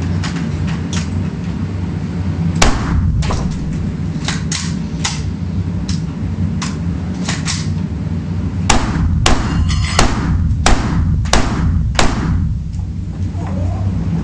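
Semi-automatic Heckler & Koch MR223 rifle firing .223 Remington in single shots: scattered shots and fainter reports early on, then a steady string of six loud shots about two-thirds of a second apart in the second half, over a steady low rumble.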